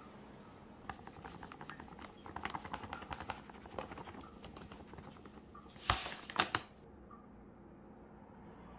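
Seeds pattering as they are shaken from a paper pouch onto vegetables in a bowl, a quick run of small ticks. About six seconds in, the paper bag rustles loudly twice.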